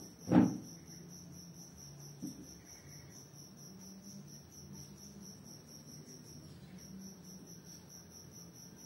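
A cricket chirping steadily in a high, even pulse, about four pulses a second. A single loud thump comes about half a second in, and a softer knock about two seconds in.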